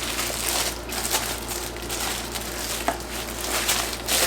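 Packaging rustling and crinkling as an item is handled, with a sharper click about three seconds in.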